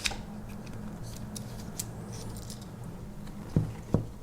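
A few light clicks and taps from handling a Victorinox Explorer Swiss Army knife and its small metal tools, with two sharper clicks near the end, over a faint steady low hum.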